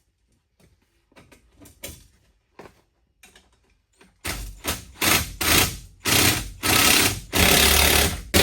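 A few faint clicks of bolts being handled, then a power driver running bolts down in repeated short bursts of about half a second to a second each, starting about four seconds in.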